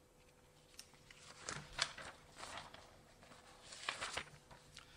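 A few faint, scattered clicks and rustles in a quiet room, over a faint steady hum.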